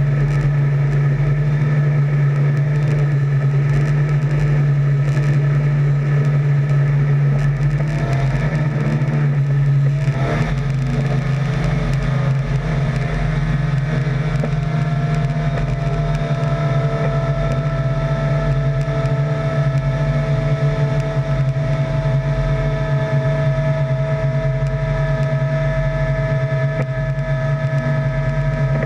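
Heavy diesel farm machinery running steadily under load during green-rye chopping: a deep constant drone with steady higher whines. About ten seconds in the sound shifts slightly and one whine rises in pitch, then holds.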